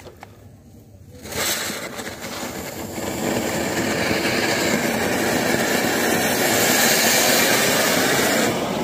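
Two anar fountain firecrackers burning together, spraying sparks with a loud steady hiss that starts about a second in, swells over the next couple of seconds and cuts off near the end.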